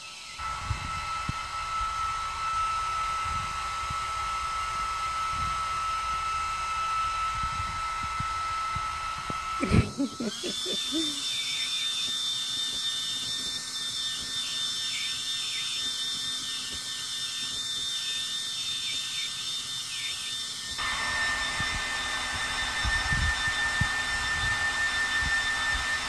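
Handheld electric hair dryer running steadily, its motor whine over the rush of air. About ten seconds in there is a click and the whine steps up to a higher pitch.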